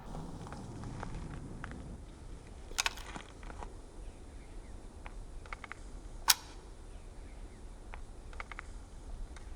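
A few short clicks and taps over a low background rumble: a small cluster about three seconds in and one sharp, louder click about six seconds in.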